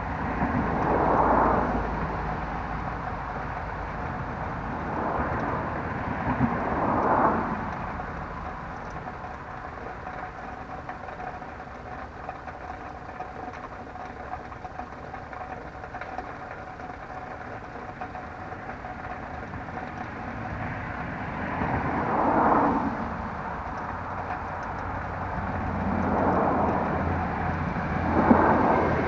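Road vehicles passing one after another, four pass-bys, each a swell of tyre and engine noise that rises and fades over a second or two, over a steady low rumble of traffic.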